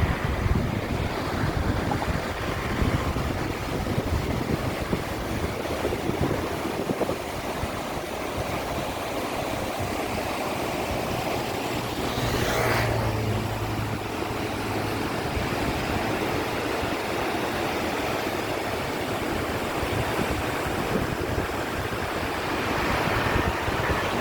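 River water rushing steadily, with a low rumble of wind on the microphone. A brief louder whoosh comes about halfway through.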